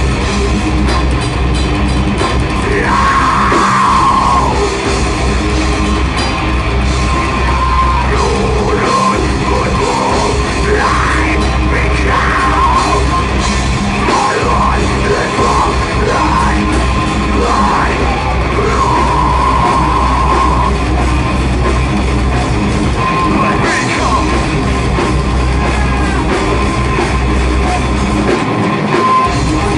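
Live heavy metal band playing loudly: electric guitars, bass and drum kit, with a vocalist on the microphone. The low end drops out briefly near the end.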